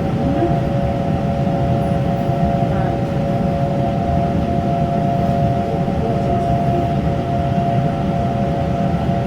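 Taiwan Railway electric local train, a steady low rumble with a constant whine of several held notes over it.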